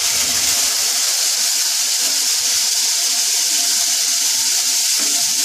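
Water just added to hot mustard oil and spice paste in a kadai, sizzling with a loud, steady hiss as the masala steams, while a wooden spatula stirs it.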